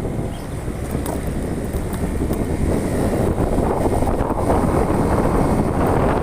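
Wind buffeting the microphone over the low rumble of a vehicle on the move, growing a little louder about halfway through.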